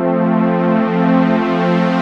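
Intro music: sustained synthesizer chords with a swelling, brightening wash.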